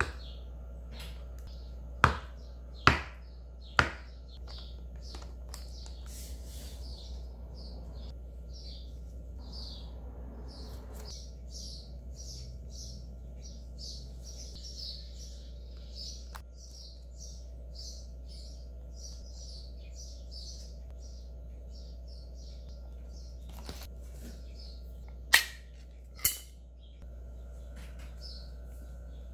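Small birds chirping in quick, repeated short notes, with sharp knocks of kitchen utensils: three about a second apart near the start and two more near the end.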